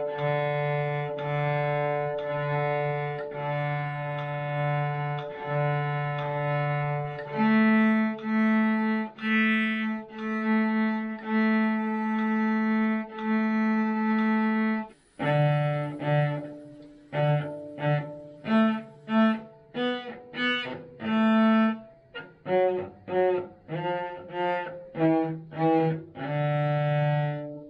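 Beginner playing the cello: slow, even bow strokes repeat a single low note about once a second, then a higher note for several more strokes. About halfway through, shorter bowed notes follow at changing pitches, ending on one longer held note.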